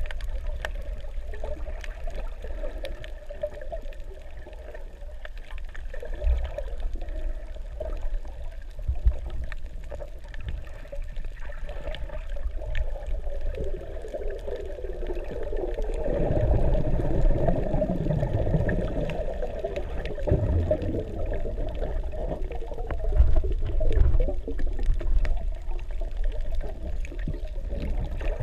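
Underwater ambience heard through a submerged camera: muffled rushing and sloshing of water with scattered faint clicks, swelling louder for a few seconds about halfway through.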